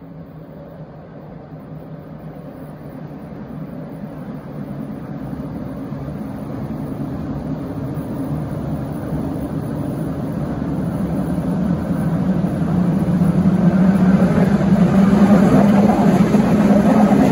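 Sydney Trains Waratah double-deck electric train approaching and coming alongside. Its steady low hum and wheel-on-rail rolling noise grow steadily louder and are loudest in the last few seconds.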